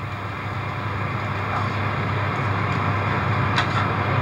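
Running noise of a 200 series Shinkansen heard inside the passenger car: a steady low hum with rushing noise, growing steadily louder. There is one short click near the end.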